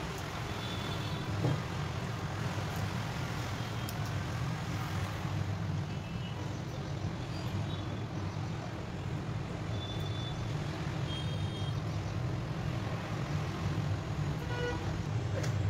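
Steady low mechanical hum under a hiss of background noise, with a few faint, short, high-pitched tones now and then.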